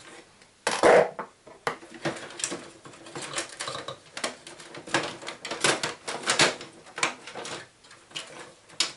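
Hard plastic and metal parts of an Epson XP-312 inkjet printer clicking, clattering and cracking as it is pulled and broken apart by hand. A busy string of sharp clicks and knocks, loudest about a second in.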